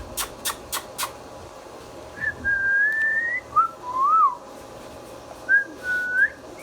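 Indian ringneck parrot whistling a series of short, clear notes, some rising and one rising and falling, after four sharp clicks in the first second.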